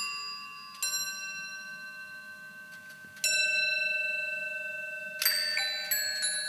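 Bells chiming. Single strikes come at the start, about a second in and about three seconds in, each ringing on and slowly fading, then several strikes follow quickly one after another near the end.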